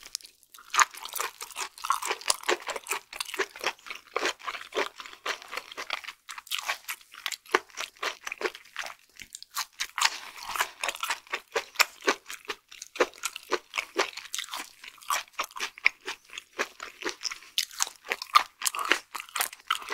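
Close-miked chewing of raw flatfish sashimi: a fast, uneven run of wet, crunchy clicks and smacks from the mouth that goes on without pause.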